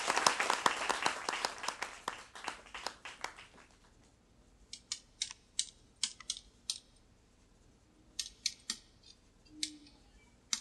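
Audience applause dying away over the first three seconds or so, followed by a scattering of sharp, separate clicks and taps in small clusters.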